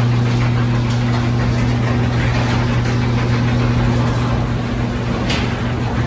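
Overhead garage door opener running with a steady low hum as it raises the sectional door, opening normally.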